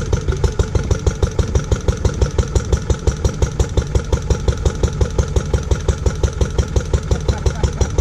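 Lister D single-cylinder petrol stationary engine running steadily at idle, with an even beat of about five strokes a second. This is its first run after a restoration and more than twenty years standing unused.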